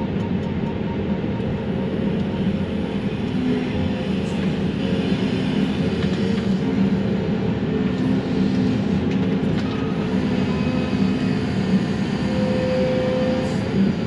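Excavator diesel engine and hydraulics running steadily under load, heard from inside the cab, as the grapple gathers and lifts a load of brush. A brief higher hydraulic whine comes about twelve seconds in.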